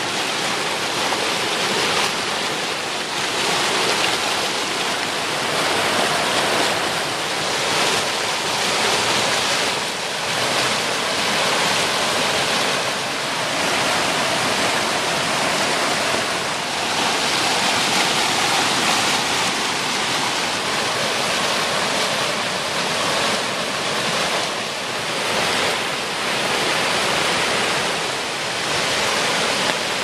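A small rain-swollen brook rushing in white-water rapids over and around rocks: a loud, steady rushing of water with gentle swells.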